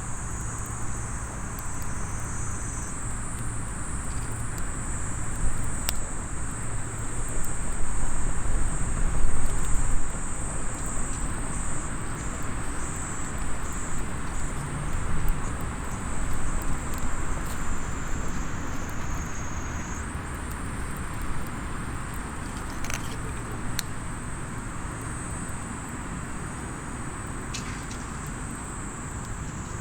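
Outdoor night ambience: a steady high-pitched insect chorus over a low rumble of distant traffic that swells about a third of the way in, with a few sharp pops from a small wood campfire.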